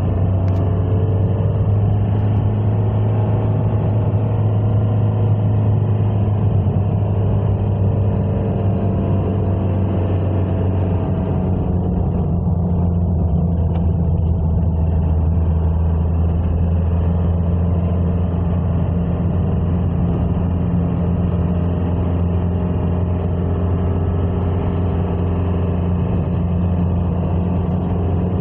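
Motor vehicle driving, a steady low engine and road drone, with the engine note shifting slightly lower about eleven seconds in.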